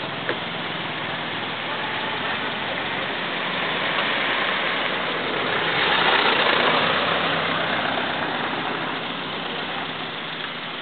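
Road traffic at a roadside: a steady engine idle, and a red songthaew (pickup-truck taxi) driving past, its sound swelling to a peak about six seconds in and fading away.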